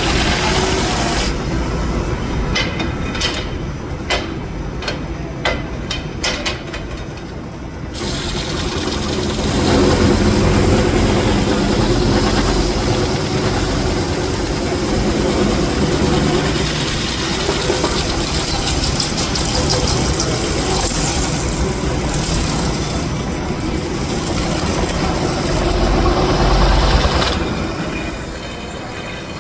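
Metal lathe running while trimming an aluminium workpiece, a steady machine noise. For several seconds early on it is joined by a run of regular clicks, about two a second.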